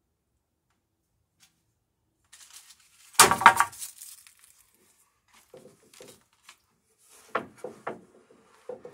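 Wooden boards knocking and scraping against one another as planks are shifted in a stacked lumber pile: a loud clatter about three seconds in, then a few lighter knocks near the end.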